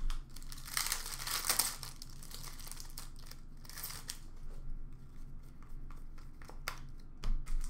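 Crinkling of opened trading-card pack wrappers and cards being handled, in scattered rustling bursts with a few sharp clicks.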